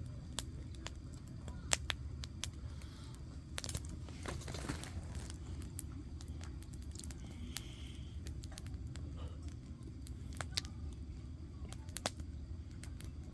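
Wood campfire crackling, with irregular sharp snaps from the burning logs over a steady low rumble.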